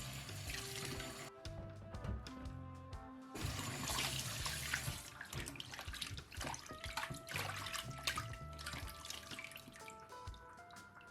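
Background music over water running from a tap into a sink, the water heard in two spells: for about the first second and a half, and again from about three and a half to five seconds in.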